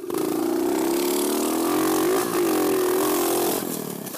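Pit bike's small single-cylinder engine pulling under throttle, its pitch sagging and then climbing again about halfway through, and dropping off near the end as the throttle eases.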